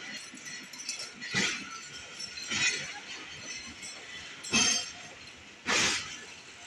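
Jaffar Express passenger coaches rolling slowly past, their wheels clacking over a rail joint: four sharp metallic clanks in two pairs, about a second apart within each pair.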